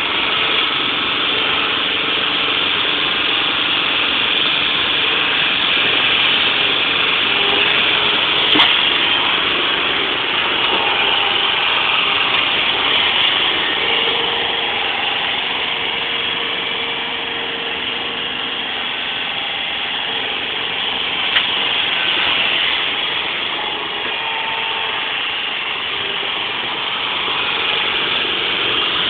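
Engine of a truck-mounted forklift running steadily as it drives and carries a pallet, with two sharp clicks partway through.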